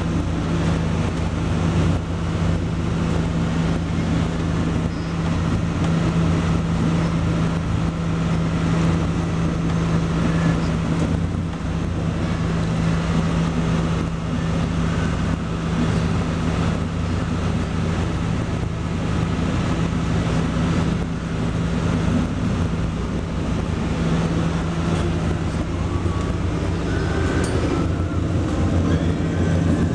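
Steady low hum of a ship's machinery aboard a schooner, under wind noise buffeting the microphone.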